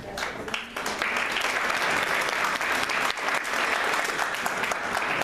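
Audience and panelists applauding: many people clapping, swelling over the first second and then holding steady.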